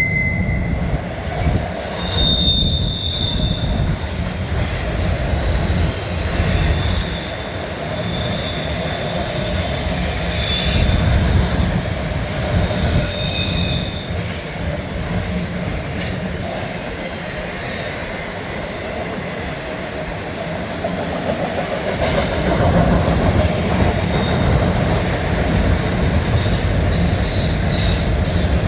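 Loaded autorack freight cars rolling past: a steady rumble of steel wheels on the rails, with thin, high wheel squeals that come and go.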